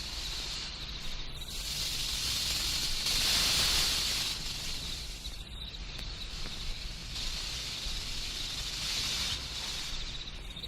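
Spooky sound-effect hiss from a vinyl sound-effects record. It swells louder about three to four seconds in and again near nine seconds, over faint chirping crickets and a low record rumble.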